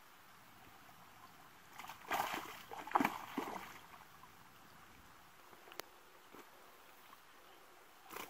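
Water splashing for about two seconds, a hooked fish thrashing at the surface by the bank as it is brought to the landing net. A single sharp click comes later, and a short splash right at the end.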